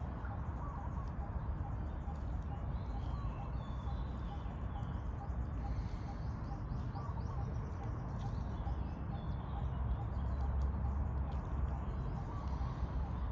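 Outdoor ambience: a steady low rumble with faint bird calls and chirps above it.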